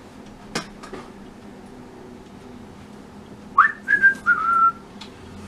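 A sharp tap about half a second in, then a person whistling a short phrase a little past halfway: a quick upward swoop followed by three notes stepping down.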